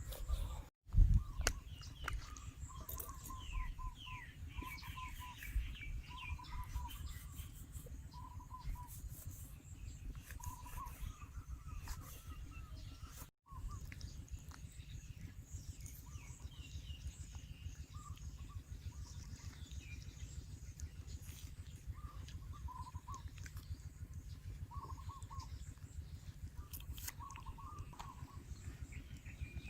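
Small birds chirping, with short repeated notes and some higher quick calls, over a steady low rumble. The sound cuts out briefly twice.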